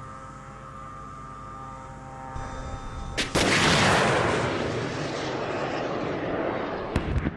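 A steady hum. About three seconds in comes a sharp crack, then at once the loud rushing roar of an FIM-92 Stinger missile's rocket motor, fading over several seconds as the missile flies away.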